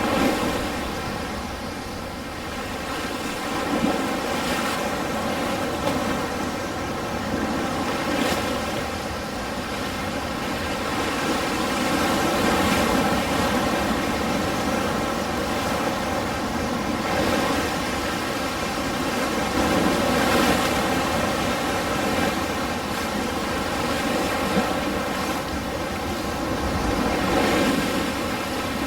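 Ocean surf: a continuous wash of breaking waves that swells and eases every several seconds.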